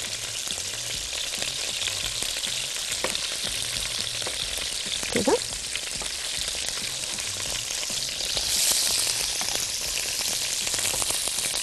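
Cubes of beef searing in hot oil in a pan: a steady sizzle that swells a little about eight and a half seconds in.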